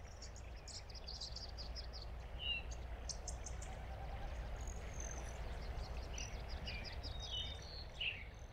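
Outdoor nature ambience: several songbirds chirping and trilling, some calls falling in pitch, over a steady low rumble.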